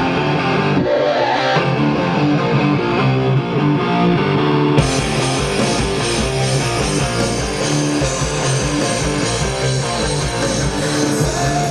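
Loud rock music with distorted electric guitar blaring from a high-powered stereo set up as a wake-up alarm. It grows fuller and heavier about five seconds in.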